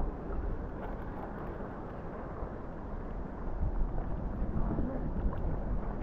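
Wind buffeting the microphone out on the open sea, a steady low rumbling noise that grows slightly louder in the second half.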